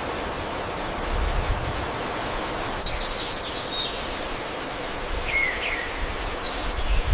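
Outdoor ambience: a steady rushing noise with low rumbles, and a few short bird chirps about three seconds in, around five and a half seconds, and again near the end.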